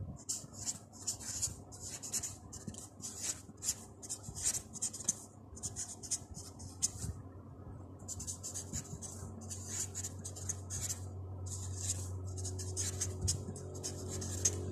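Felt-tip marker writing: its tip scratches across the sheet in many quick short strokes, with a pause of about a second around seven seconds in.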